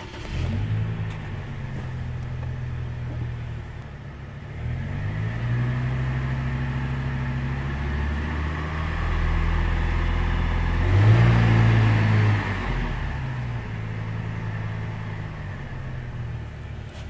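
2004 Chevrolet Colorado's 3.5-litre inline-five engine, heard from the cab, catching and idling. It is revved up about four seconds in and held near 2,000 rpm, revved higher about eleven seconds in, then drops back to idle near 1,000 rpm.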